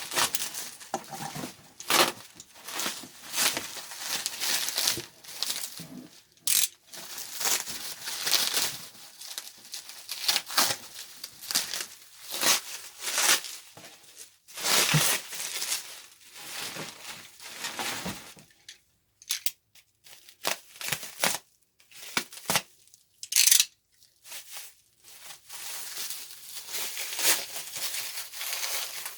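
Packing material being unwrapped and pulled off in irregular bursts of crinkling and tearing, with short pauses between handfuls.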